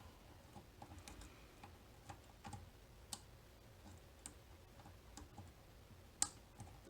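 Faint, irregular light clicks of lock picking tools working the pins of a Mul-T-Lock Interactive cam lock, with a sharper click about six seconds in.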